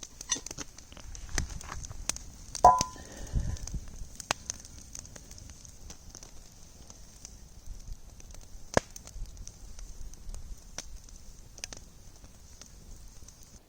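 Food sizzling in a cast iron pan over a campfire, a steady high hiss with scattered crackles and pops from the fire. A sharp clatter with a brief ring sounds about three seconds in.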